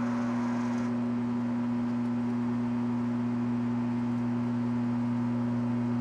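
Microwave oven running with a steady, even hum while heating a jug of milk.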